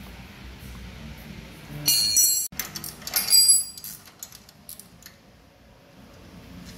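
Metal parts and tools clinking and jingling: two short bouts of ringing metallic rattle, about two seconds in and again a second later, the first cut off abruptly.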